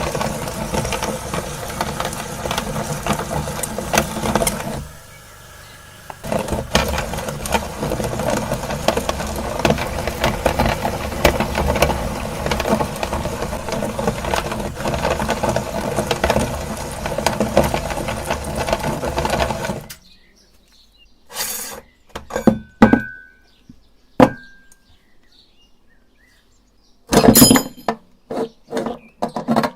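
Electric meat grinder running with a steady motor hum while crunching up a plastic computer mouse, with dense cracking and clinking of breaking plastic. The grinder lets up briefly about five seconds in, then cuts off suddenly about two-thirds of the way through. A few separate knocks and clicks follow.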